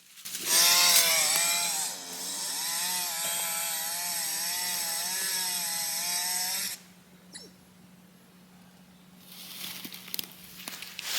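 Two-stroke chainsaw revving high, then dipping in pitch as it bites into the wood and running steadily under load through the cut before cutting off suddenly about seven seconds in. Near the end a rising rustling crackle starts.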